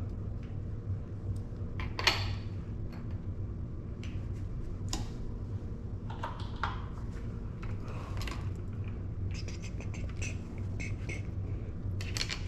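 Scattered light metallic clicks and clinks of BMX handlebar stem parts, bolts and an Allen wrench being handled while the bars are fitted, over a steady low hum.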